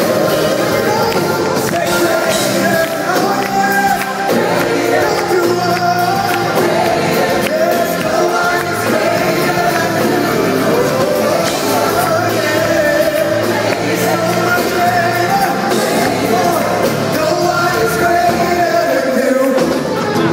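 Live gospel worship music: a band and a group of lead singers on microphones perform an upbeat song through a hall's sound system, loud and steady, picked up on a phone's microphone from the audience.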